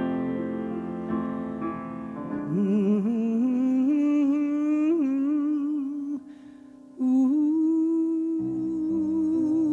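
Piano chords, then a single voice humming a slow melody with vibrato over the piano, breaking off briefly about six seconds in before holding a long note.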